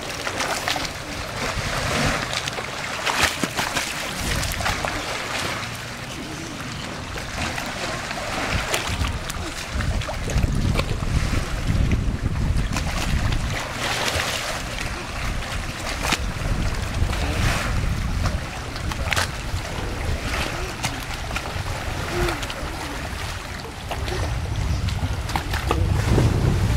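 Water splashing again and again as a child swims, with wind rumbling on the microphone in low gusts through much of it.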